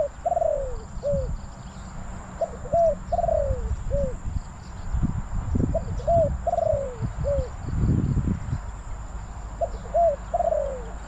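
Spotted dove cooing: repeated phrases of a few short notes and a longer falling coo, one phrase every three to four seconds. Underneath runs a low, uneven rumble that is loudest about eight seconds in.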